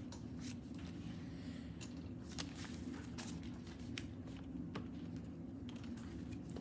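Quiet room with a steady low hum, over which paper handouts rustle and a few light clicks and taps sound at irregular moments.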